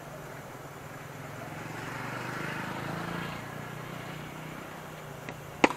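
A cricket bat strikes the ball once with a sharp crack near the end, over a steady low hum.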